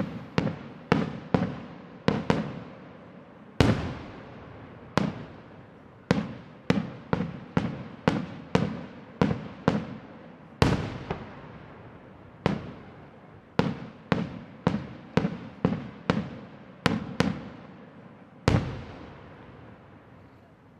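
Aerial firework shells bursting in quick succession, about two dozen sharp bangs, each trailing off in an echo. Three heavier booms stand out, about a third of the way in, halfway, and near the end.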